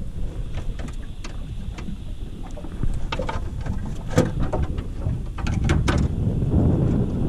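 Clicks and knocks of gear being handled and rummaged in a boat's side pocket, a cluster of sharp knocks about three to six seconds in, over low wind rumble on the microphone.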